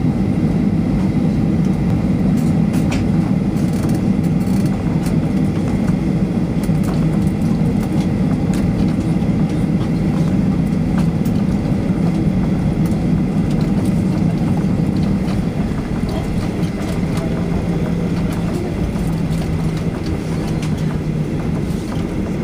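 Cabin noise inside a Boeing 737-800 as it taxis: the steady drone of its CFM56 engines together with the low rumble of the wheels rolling, with light rattling clicks on top.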